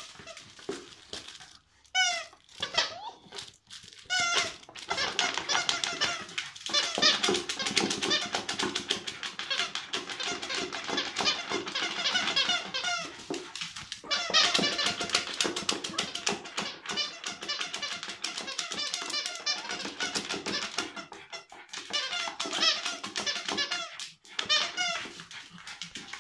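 A dog's squeaky plush toy squeaking rapidly over and over as a small dog bites and shakes it, in long runs with a few short pauses.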